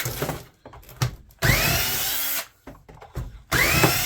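Power drill-driver backing out screws. The motor runs in two bursts of about a second each, whining up in pitch as each one starts, with small clicks and rattles between.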